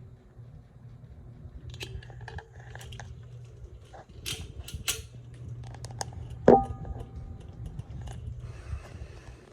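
Hampton Bay Hugger ceiling fan running with a steady low hum, over scattered clicks and knocks. About six and a half seconds in comes one loud, ringing clink.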